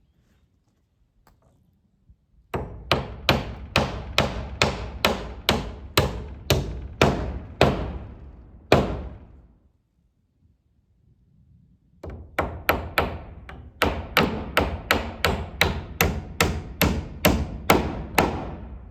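Hammer driving nails into wooden board-and-batten barn siding: two runs of quick, steady blows, about three a second, each ringing out briefly, with a pause of a few seconds between the runs.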